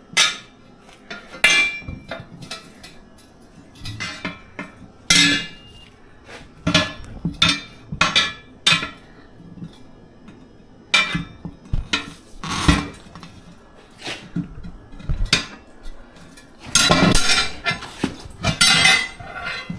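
Steel tire irons working a tire bead off a trailer wheel's steel rim by hand: irregular metal clanks and clinks as the irons are levered and walked around the rim, with a busier run of clanking and scraping near the end.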